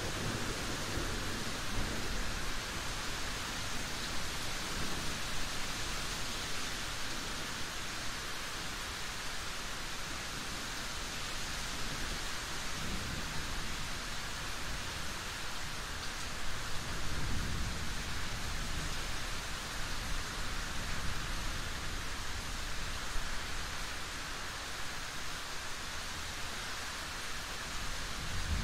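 Steady, dense rain falling, a continuous even hiss. Low rumbles of distant thunder swell up under it a couple of times in the middle.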